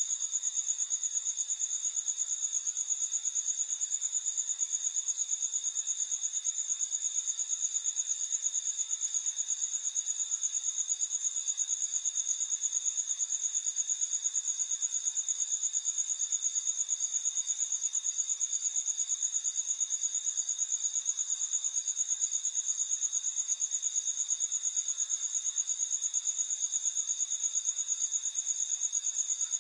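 Crickets trilling in a steady, high-pitched chorus with a fast, even pulse.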